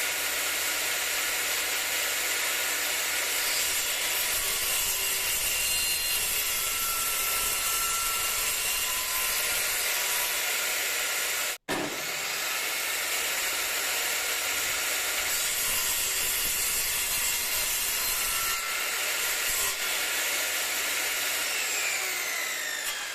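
Parkside PMTS 210 A1 benchtop table saw running and cutting wood with its 24-tooth blade, a steady loud whine and rasp. The sound drops out for an instant about halfway. Near the end the motor is switched off and its pitch falls as the blade spins down.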